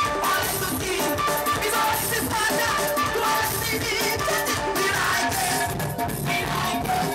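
Soca music with singing, played loud over a DJ sound system with a steady driving beat.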